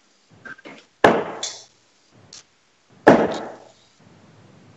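Steel-tip darts striking a bristle dartboard: two loud thuds about two seconds apart, each ringing briefly, with a few faint knocks between.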